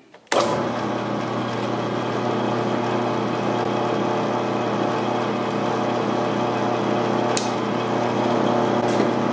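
Drill press switched on about a third of a second in and running steadily, driving a Tapmatic tapping head that taps a small 2-56 hole in a titanium handle slab; a single sharp click about seven seconds in.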